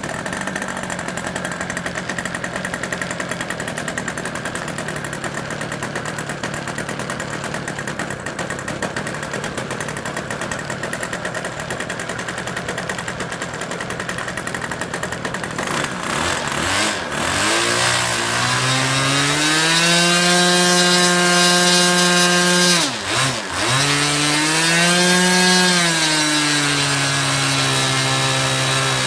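Small fixed-wing airplane's engine starting up and running at a steady idle. About sixteen seconds in it revs up to a higher, steadier pitch. It briefly drops back a little past twenty seconds, then rises again.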